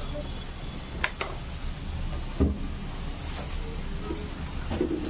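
Glass bottles and glasses handled on a soda stall counter: two light clinks about a second in and a duller knock a little later, over a steady background hum.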